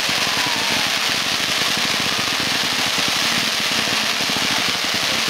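Many fireworks going off at once, ground-level fountains and rapid-fire stars, making a loud, steady crackling hiss in which the separate pops merge into one continuous noise.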